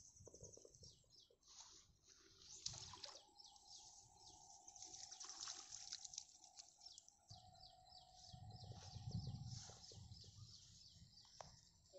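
Faint pond-side ambience: soft, scattered patter of light rain on the water, with a faint steady tone held through the middle and soft low rumbles.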